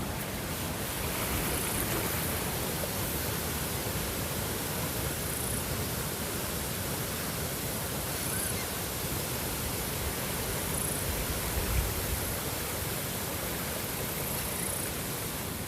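Steady, even rushing of running water, with faint short high chirps every few seconds.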